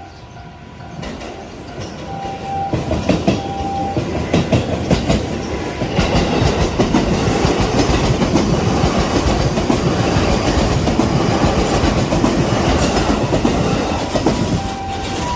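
A train passing over a level crossing, its wheels clacking over the rail joints; the rumble builds from about a second in, stays loud through the middle and eases near the end. The crossing's warning bell rings at the start and again at the end.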